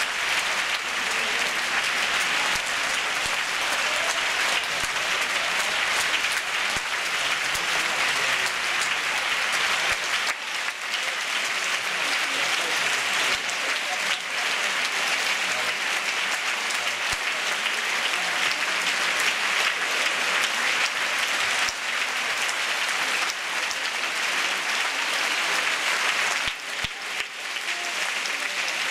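Large theatre audience applauding steadily, a dense continuous clapping that eases briefly about ten seconds in and again near the end.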